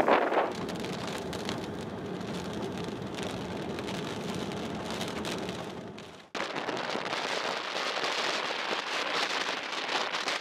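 Strong wind rushing steadily through trees, a dense hiss. About six seconds in it fades and cuts to a brighter, steady rush of wind in the open.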